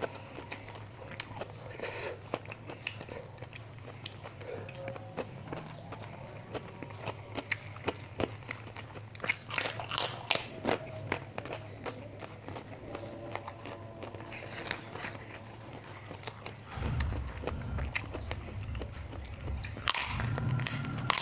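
A person biting and chewing crunchy kerupuk crackers with fried rice, many crisp crunches. The loudest crunches come about ten seconds in and again near the end. A low steady rumble joins in for the last few seconds.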